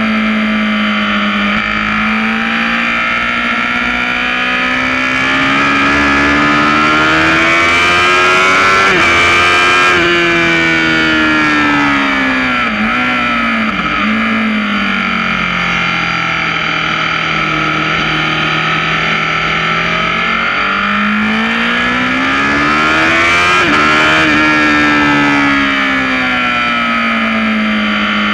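Sport motorcycle engine at high revs on a circuit. The note climbs under acceleration, falls away as the bike slows with two brief breaks in the note a little past midway, then climbs and falls again near the end, over a steady rush of wind noise.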